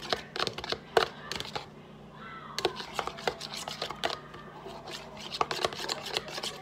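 Rapid, irregular clicks and taps of a utensil against a bowl while stirring a dish-soap-and-salt slime mixture.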